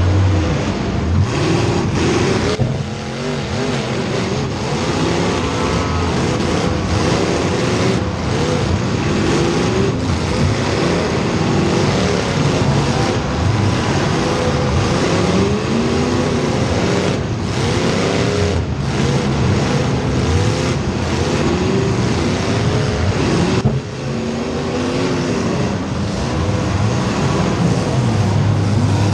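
Several race car engines running hard during a race, their pitch rising and falling over and over as the cars accelerate and back off, with cars passing by. The sound drops briefly for a moment near the end.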